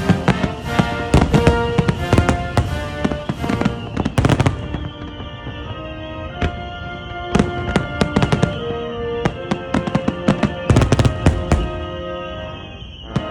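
Fireworks bursting in rapid volleys of sharp bangs, thick at first, thinning out in the middle, then thick again near the end, over music with held notes.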